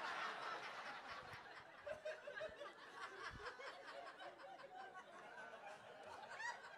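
Audience laughing, strongest at the start and tapering off to scattered chuckles.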